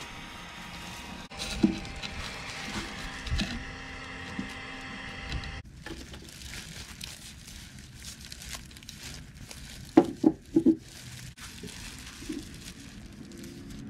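Wood lathe running with a steady hum that cuts off suddenly a little over five seconds in. Then rustling of plastic sleeves and gloves while the wood blank is handled, with three sharp knocks a little after the middle.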